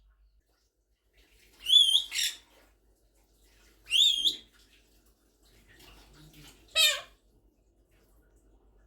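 Quaker parrot (monk parakeet) imitating a cat's meow: three high-pitched, wavering calls a couple of seconds apart, the first broken into two parts.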